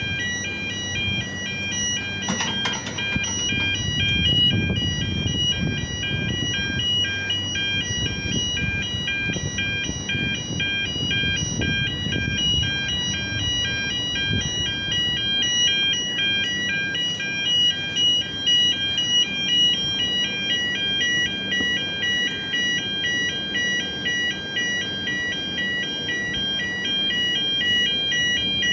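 Railway level crossing warning bells ringing in a fast, steady repeating pattern of high electronic tones, the signal that the crossing is closed for an approaching train. A low, uneven rumble runs underneath, strongest in the first half.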